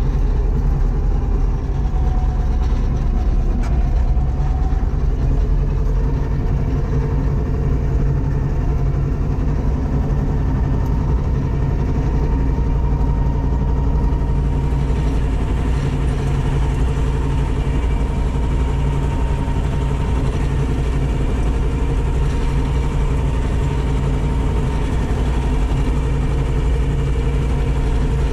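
Diesel tractor engine running steadily, heard from inside the cab, with a low, even drone. About halfway through, a brighter hiss is added.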